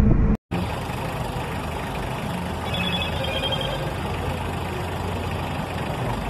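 Steady street noise of a vehicle engine idling, with no thunder clap. A faint high tone pulses briefly about three seconds in.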